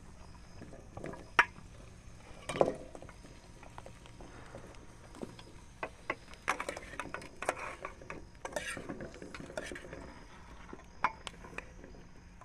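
Steel colander and cooking pot clinking and knocking together as boiled ground provisions (green fig, sweet potato, eddoes) are tipped and scraped into the pot. The metal knocks are irregular, with a busier run of clinks in the middle.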